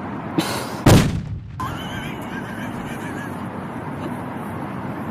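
A single loud bang, most likely the prank popper hidden in the purse going off, with a short rushing hiss just before it. It is followed by faint background voices.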